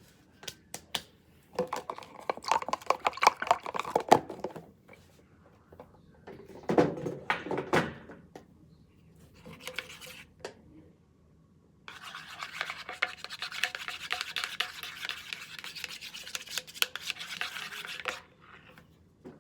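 Homemade glue-and-borax slime being stirred and worked: several short bouts of sticky crackling and scraping, then about six seconds of steady, busy stirring near the end.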